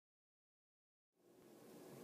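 Near silence: dead silence, then faint room tone fading in a little over a second in.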